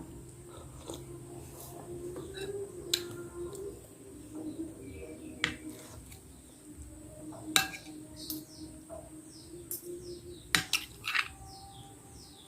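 Cutlery clinking sharply against a bowl half a dozen times, spaced a second or two apart. Birds chirp in short, falling, high notes through the second half.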